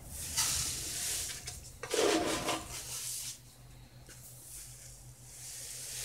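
Fine alum powder pouring from a cup into a small plastic bottle, a soft hissing trickle for about three seconds, then a second, quieter pour near the end.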